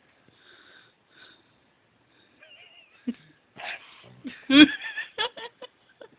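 A person laughing in a few short bursts a little past halfway, starting with a sharp click.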